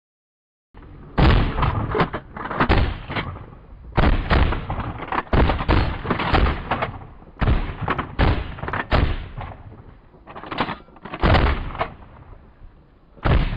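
Several hunters' shotguns firing in a rapid, overlapping string of shots, well over a dozen in about twelve seconds, often two or three close together, each shot with a short echo.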